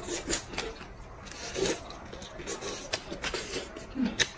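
Close-up eating sounds of a person eating garlic prawns: irregular wet chewing, smacking and slurping with scattered sharp clicks. The loudest smacks come about a second and a half in and again near the end.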